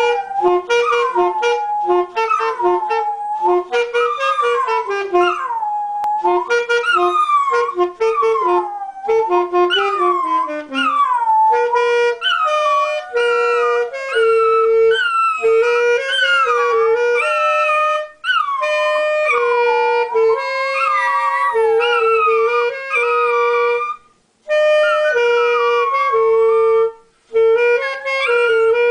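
Saxophone playing a slow line of held notes while dogs howl along, their howls sliding up and down in pitch above the notes. The playing and howling stop briefly a few times near the end.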